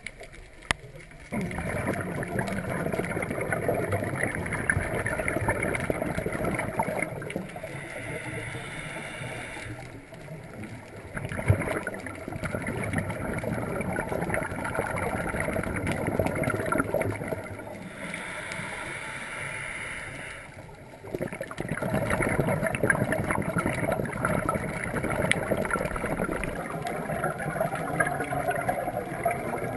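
Scuba diver breathing through a regulator underwater: long stretches of exhaled bubbles gurgling, broken twice by shorter, quieter inhalations.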